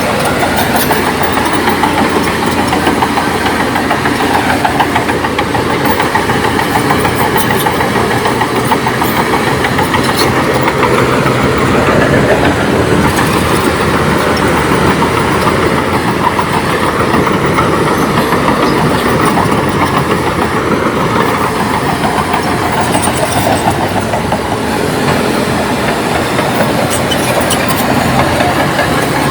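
Komatsu D58P crawler bulldozer at work: its diesel engine runs steadily under load over a dense, continuous clatter from the steel tracks.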